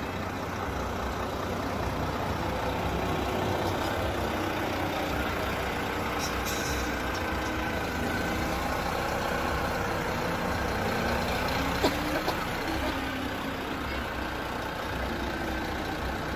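Heavy diesel engines of Renault fire trucks running as the trucks roll slowly past close by, the engine note rising and falling. There is a short hiss about six and a half seconds in and a sharp click near twelve seconds.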